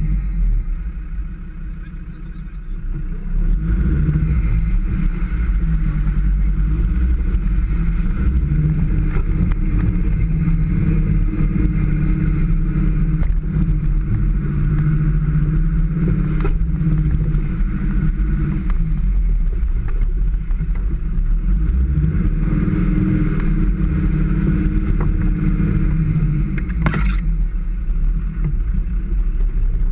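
Land Rover Defender engine running under load while driving off-road. It eases off briefly and then picks up again about three seconds in, and runs steadily after that. A single sharp knock comes near the end.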